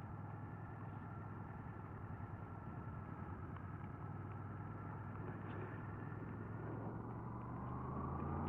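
Honda VFR800Fi's V4 engine running while the motorcycle is ridden, under a steady rushing noise; its pitch rises near the end as the bike speeds up.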